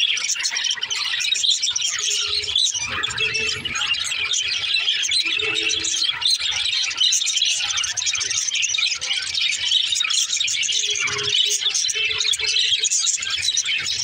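A flock of budgerigars chattering and warbling, many birds calling at once in a dense, unbroken twitter.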